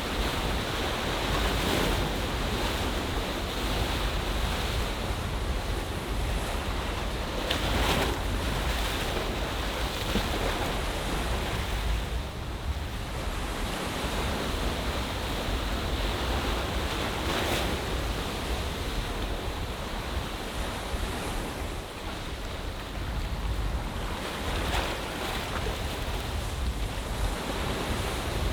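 Ocean waves washing into a seaside bay, a steady wash with a few louder surges. A low wind rumble on the microphone runs underneath.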